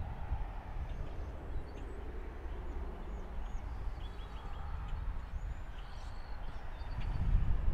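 Outdoor background: a steady low rumble with faint, short, high bird chirps scattered through.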